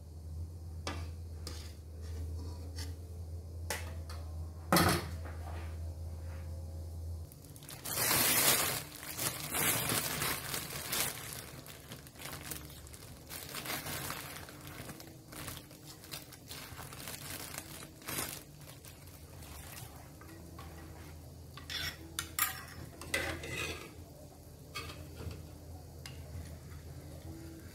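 Kitchen work: utensils clinking and scraping against bowls and pans, with scattered sharp clinks throughout. A steady low hum runs under it and stops about seven seconds in. The loudest part is a stretch of scraping or rustling noise from about eight to eleven seconds in.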